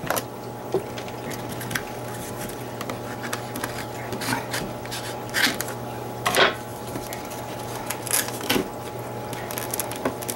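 Unpacking a stack of clear plastic pantry bins: light clicks and knocks of plastic on plastic, scissors snipping the tie, and cardboard label sleeves rustling as they are pulled off. A few short, louder scrapes stand out over a steady low hum.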